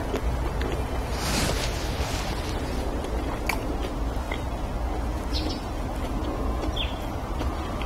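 Steady low background rumble with a brief breathy hiss about a second in and a few faint, short chirps later on.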